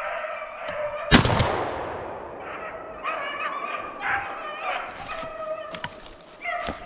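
Hunting dogs baying in long, repeated howls as they run a rabbit. A single loud gunshot cracks about a second in and rings off as it fades.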